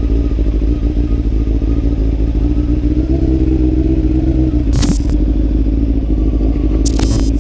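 2003 Honda CB600F Hornet's inline-four engine running under way in city traffic, its pitch rising a little about three seconds in. Two brief sharp knocks come about five and seven seconds in.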